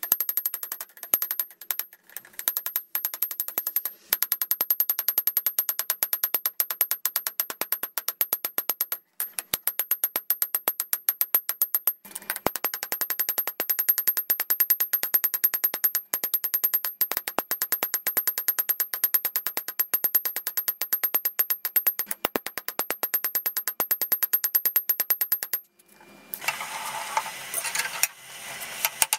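Hammer blows on a hot ball peen hammer head over an anvil, forging it into a hatchet. The sharp ringing strikes come in a fast, even rhythm of about five a second, with brief pauses about nine and twelve seconds in. Near the end the strikes stop for a couple of seconds and a steady rushing noise takes over.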